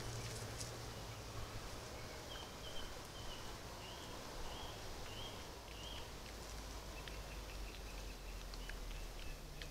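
Faint rustling and small clicks of a European badger snuffling through leaf litter, over the steady hiss and low hum of a trail camera. A run of about six short high chirps comes in the first half, then a fainter string of short high notes.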